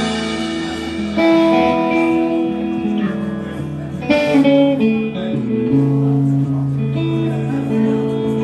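Live band playing a song's instrumental intro, led by guitar over a steady bass, with sustained chords that change every second or two.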